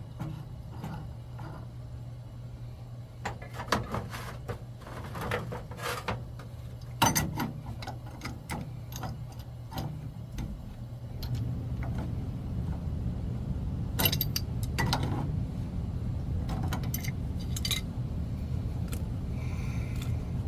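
Scattered metallic clinks and knocks of tools working on water heater pipe fittings, over a steady low hum that grows louder about halfway through.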